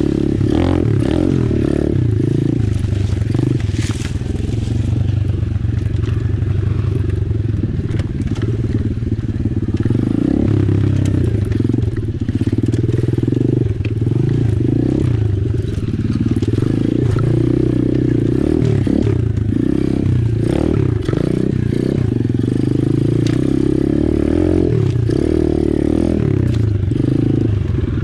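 Apollo RFZ 125cc pit bike's single-cylinder four-stroke engine running while being ridden, its pitch rising and falling with the throttle, with scattered knocks and clatter.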